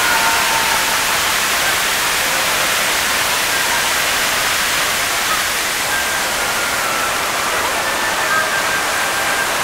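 Torrent of staged flood water pouring and crashing down a rocky set close by: a loud, steady rush of water.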